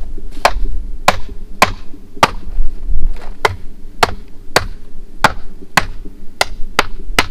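Hand hammer striking in a steady rhythm, about thirteen sharp blows a little under two a second.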